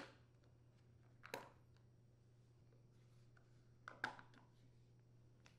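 Faint clicks of a flat-head screwdriver prying the plastic wheel covers off a push mower's wheels: one click right at the start, another about a second and a half in, and a few more close together around four seconds in, over near silence.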